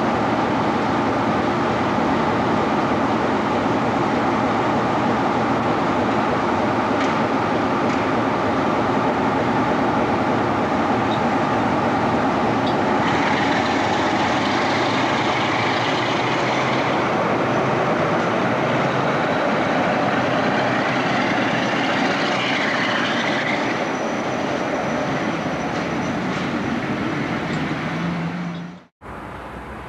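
Class 47 diesel locomotive's Sulzer twin-bank V12 engine running at a standstill, a steady throbbing note. About halfway through the sound turns brighter and harsher as the engine is worked harder and smokes, then eases back later on.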